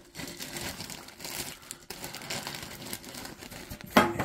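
Plastic snack bags crinkling and rustling as they are handled, with a brief, much louder burst of noise about four seconds in.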